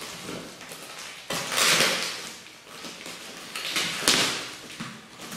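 Plastic packing tape being cut and pulled off a cardboard box: two rips about a second long each, one about a second and a half in and one near four seconds, with quieter handling of the box between.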